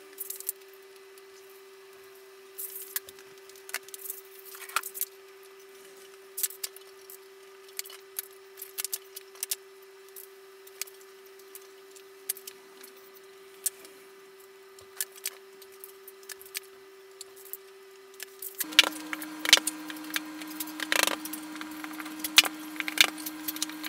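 Small metal fittings clinking and particleboard drawer panels knocking and tapping as flat-pack drawer parts are handled and set in place, over a steady hum. About three-quarters of the way through the hum drops in pitch, the background gets louder and the knocks come thicker.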